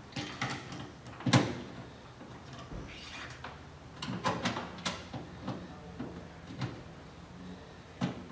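Irregular clicks, knocks and scrapes of hand work fitting a car radio antenna into the body of a 1964 Chevy Nova, with one sharp knock about a second in as the loudest.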